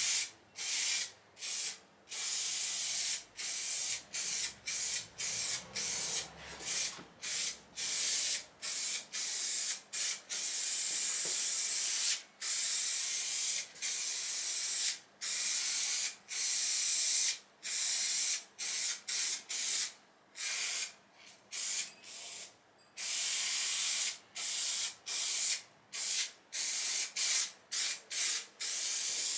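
Aerosol spray-glue can hissing in many short and a few longer bursts, stopping and starting, as adhesive is sprayed onto the back of carpet.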